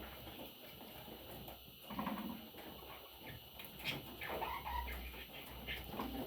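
Budgerigar chicks giving a few short, scattered calls, about two seconds in, around four seconds and near the end.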